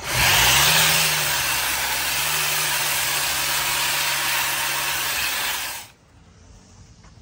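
Powered rotary scissors attachment on an EGO Power+ battery power head, trimming grass. Its electric motor spins up with a rising whine in the first second, then runs steadily with a loud whirring hiss, and stops suddenly about six seconds in.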